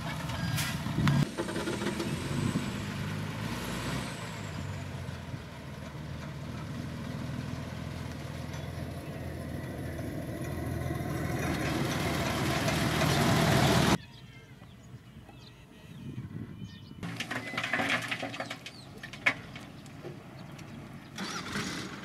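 Diesel dump truck engine running as its bed tips and unloads red gravel, then getting louder as a laden dump truck drives close by. The sound cuts off suddenly about two-thirds of the way through, leaving a quieter engine with a few sharp knocks and crunches.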